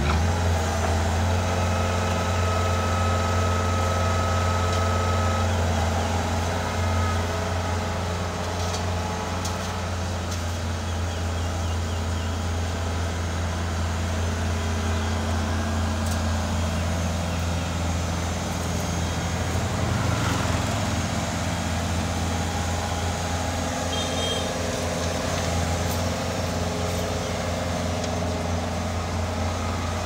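Bobcat S450 skid steer loader's diesel engine running steadily under work as the loader scoops soil, drives and raises its bucket, giving a deep, even hum.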